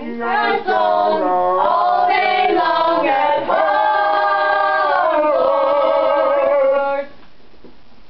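Voices singing a tune with long held notes, stopping about seven seconds in.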